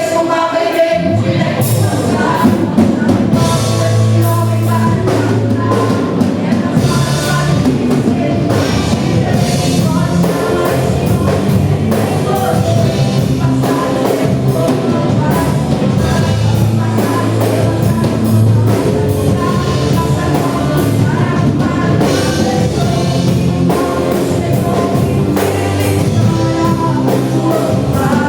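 Gospel worship song performed by a band: singing over a full band with a drum kit keeping a steady beat.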